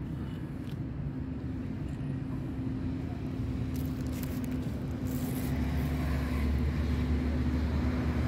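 Motor vehicle engine running with a steady low hum that grows louder about five seconds in, with a few faint clicks over it.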